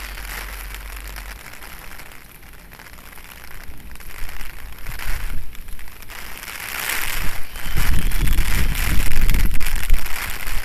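Commuter electric train approaching slowly along the platform under a speed restriction for track work, its low rumble growing louder from about seven seconds in, over a steady hiss of rain.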